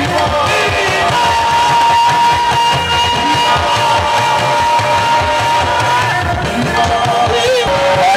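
Live gospel band music with a drum kit, one long high note held steady for about five seconds in the middle, then wavering melody near the end.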